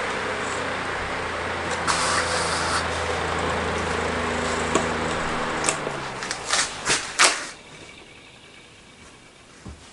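Vintage Galaxy oscillating table fan running, with a steady motor hum over rushing air. About five seconds in, the hum falls in pitch as the motor slows, with a few sharp clicks, and the sound drops away about seven and a half seconds in.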